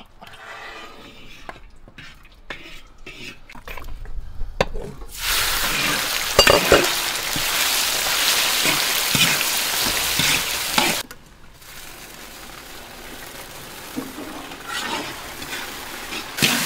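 Pork belly chunks sizzling in hot caramelised rock sugar and oil in a large iron wok, stirred with a metal ladle that scrapes and knocks on the pan. About five seconds in the sizzle turns suddenly loud as the meat hits the pan, and about eleven seconds in it drops back to a quieter sizzle.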